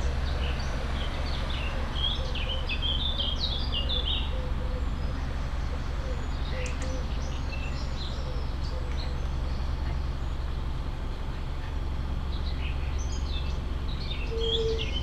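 Canal boat's diesel engine running steadily under way with a low drone, while birds chirp in short bursts near the start, in the middle and near the end.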